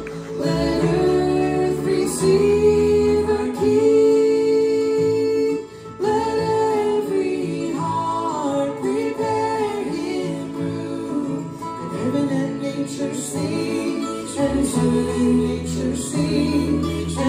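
A song from a nativity stage show: a woman singing with long held notes over instrumental accompaniment.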